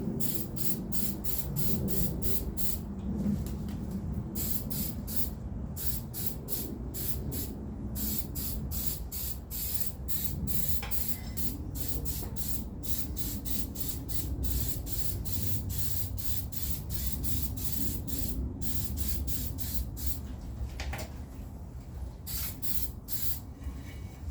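Aerosol spray can hissing in rapid short bursts, about two or three a second.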